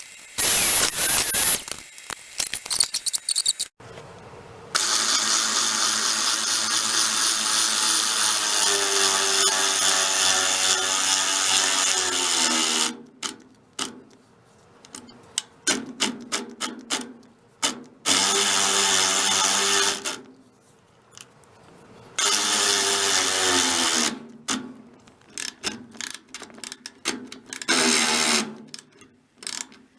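Electric power tool running in several runs: one of about eight seconds, then shorter ones, the motor's pitch falling as it winds down after each release, with clicks and handling knocks in the gaps.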